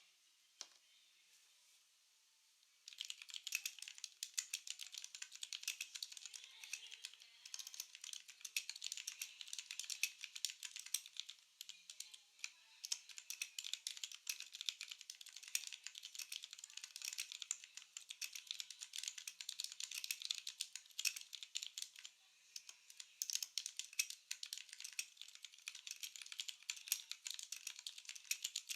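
Fast typing on a Vortex VX5 60% mechanical keyboard with Outemu Brown tactile switches, lubed with Krytox 205g0 and foam-modded. It is a dense run of keystroke clicks that starts about three seconds in, with a couple of short pauses.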